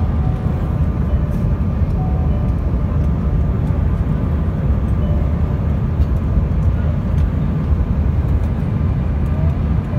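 Cabin noise inside a Bombardier CRJ1000 regional jet on final approach: a steady, loud low rumble of airflow and engines.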